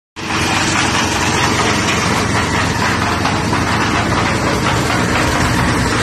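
The 7 hp gasoline engine of a portable concrete mixer running at a steady speed, starting just after the beginning and holding an even pitch and level.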